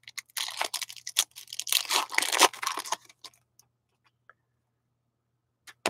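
A stack of glossy hockey trading cards being flipped through and dealt onto piles by hand: quick rustling and the snap of cards sliding over one another for about three seconds, then stillness with a faint click near the end.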